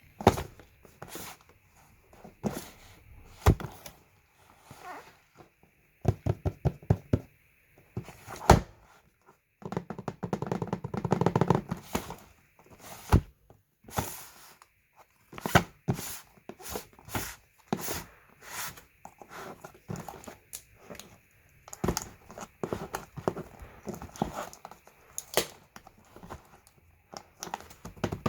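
Hands handling and opening a package at close range: a string of thunks, taps and clicks with stretches of rustling and scraping.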